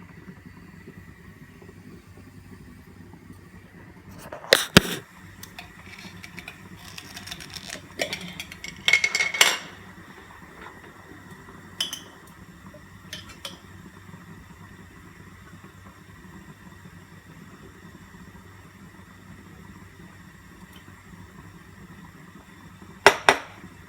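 A teaspoon clinking against a jar and cup while spooning honey into warm milk: scattered sharp clinks and knocks, the loudest about five seconds in, a cluster with a brief ring around nine seconds, and another sharp pair near the end. A faint steady hum runs underneath.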